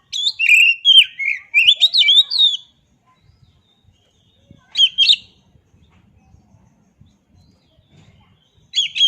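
Oriental magpie-robin singing in loud, varied whistled phrases: a rich run of notes for about two and a half seconds, a short phrase about five seconds in, and another starting near the end.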